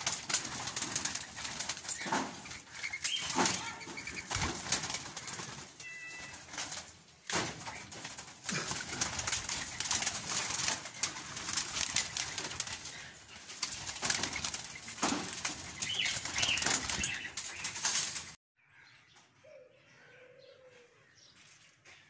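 Ringneck doves fluttering and flapping their wings in an aviary, with a rush of many quick wingbeats. About eighteen seconds in the sound drops suddenly to a much quieter background.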